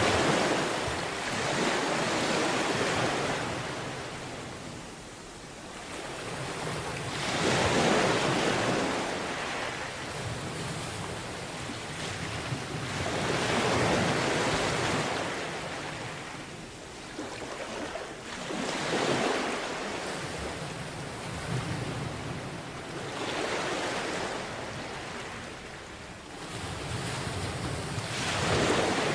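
Sea waves breaking on a beach, each wash of surf swelling and fading away again about every five to six seconds.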